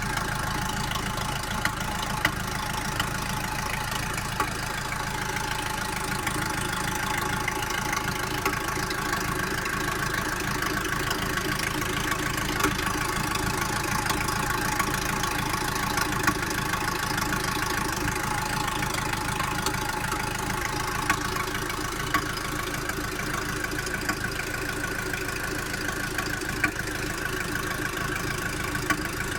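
Mercedes W203 C-Class M271 four-cylinder engine running steadily, likely at idle, with sharp clacks at irregular intervals above the engine note. The owner hears the clacking as different from timing chain rattle, and its cause is unknown.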